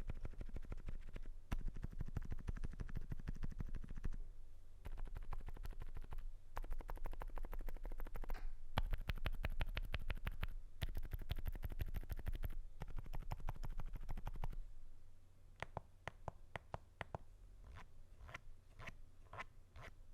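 Fast typing on a Zoom65 Essential Edition R2 mechanical keyboard with lubed Alpaca silent linear switches in a polycarbonate plate: muted keystrokes in rapid runs. For the last five seconds they slow to sparser, separate keystrokes.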